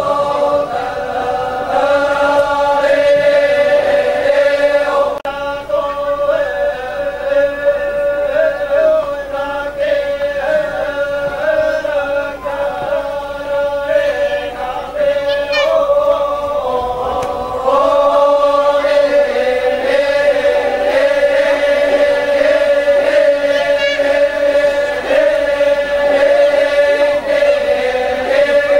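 A group of voices singing a slow Torajan funeral chant, one pitch held steady beneath lines that rise and fall, growing louder about two-thirds of the way through.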